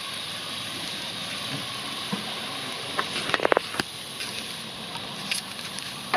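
Meat patties and sliced peppers and onions sizzling on a barbecue grill: a steady hiss, with a short cluster of sharp crackles about three seconds in.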